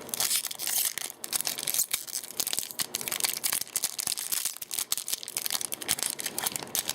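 Crinkling and tearing of a Magic: The Gathering booster pack's foil wrapper being worked open by hand. It is a dense, continuous crackle of rapid little crackles.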